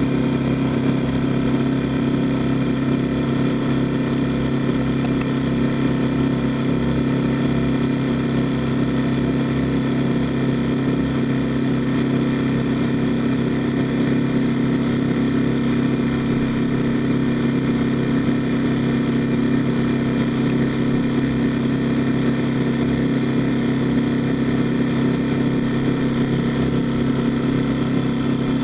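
A small boat's engine running steadily at an even speed, with no change in pitch or loudness.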